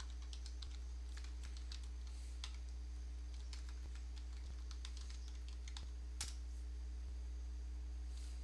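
Computer keyboard typing: irregular key clicks as a short terminal command is typed, with one louder keystroke about six seconds in. A steady low electrical hum runs underneath.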